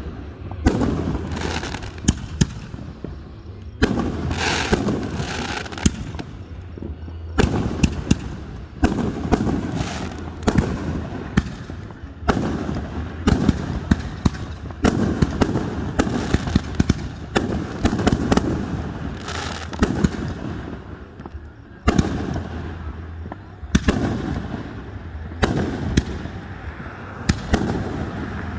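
Aerial fireworks going off in quick succession, with sharp bangs and crackles each trailing off in a rolling rumble.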